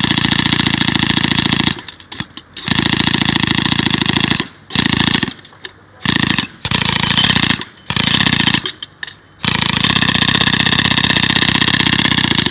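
A loud motor running in stretches, cutting out abruptly several times and starting up again, then stopping near the end.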